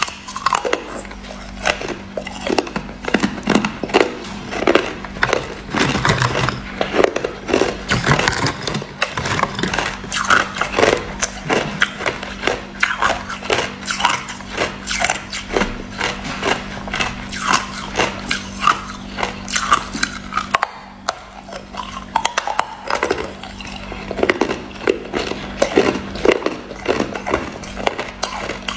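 A person biting and chewing hard ice: dense, crackling crunches one after another, with a short pause about two-thirds of the way through. A steady low hum runs underneath.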